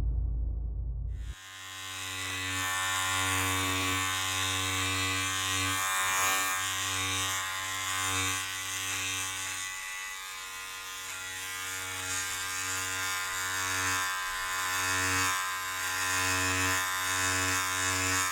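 An electric shaver-type trimmer buzzing steadily and close, swelling and fading in loudness as it moves; it cuts in about a second in as a short stretch of music ends.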